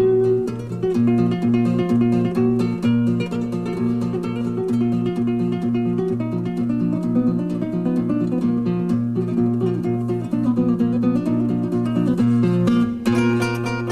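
Solo flamenco guitar playing a zambra: a melody of plucked notes over an evenly repeated low bass note, with a short break in the pattern about thirteen seconds in.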